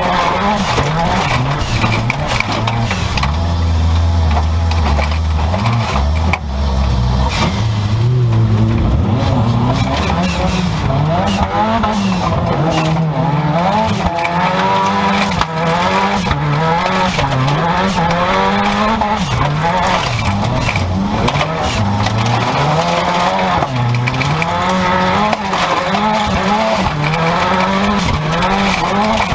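Turbocharged 16-valve Seat Ibiza stock car engine heard from inside the stripped cabin, its revs rising and falling over and over as the car is driven hard on a dirt track. Many short knocks and rattles run through it.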